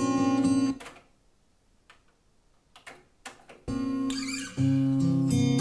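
Cassette playback from a Denon DRS-610 deck of guitar-led music. The music stops under a second in, leaving about three seconds of near silence with a few faint clicks, then starts again.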